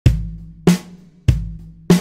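Background music opening with a drum beat: four heavy hits about 0.6 seconds apart, each with a deep ringing tail.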